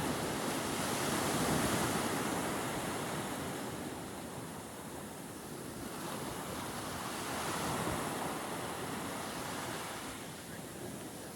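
Steady outdoor rushing noise, swelling and easing slowly over several seconds.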